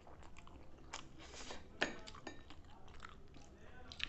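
Close-up eating sounds: chewing and biting into food, with several short, sharp crunches.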